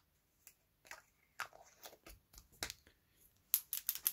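Light clicks and knocks of a small glass paint jar and its plastic cap being handled and closed, then from about three and a half seconds in a fast rattle of a ball bearing shaken inside the jar of Tamiya acrylic paint to mix it.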